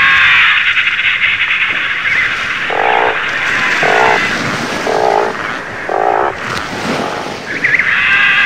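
Sea lion and imperial cormorant colony calling: a dense, continuous din of high calls, with four lower calls about a second apart in the middle.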